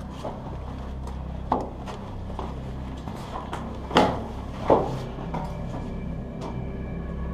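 Footsteps and scuffs of people climbing through a narrow doorway in a concrete bunker, with a few sharp knocks. The loudest two come close together about four seconds in, and a smaller one about a second and a half in, over a steady low hum.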